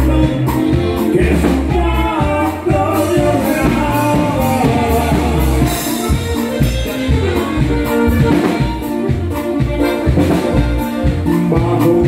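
Live norteño band playing a corrido: a steady bass and drum beat under a melodic lead line.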